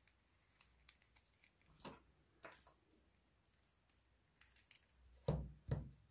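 Handling noise from a baitcasting reel: scattered small clicks and rattles as it is turned in the hands, then two heavier knocks about half a second apart near the end as the reel is set down on a table.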